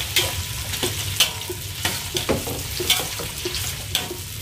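Garlic, shallots and galangal sizzling in oil in a wok, with a metal spatula scraping and clinking against the pan about three times a second as they are stir-fried.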